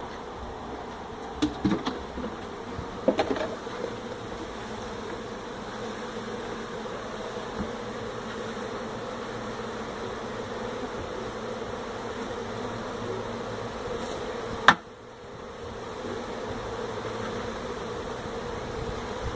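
A honey bee colony buzzing steadily: a dense, even hum of many bees around an opened hive. A few knocks sound in the first few seconds, and there is one sharp click about fifteen seconds in.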